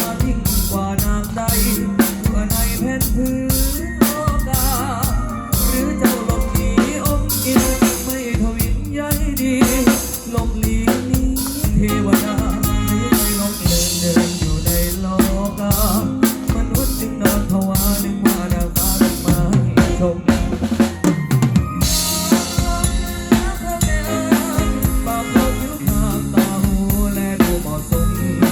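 Live band playing an instrumental passage of a Thai luk thung song, with the drum kit to the fore: snare rimshots and a steady bass drum under bass and other pitched instrument lines.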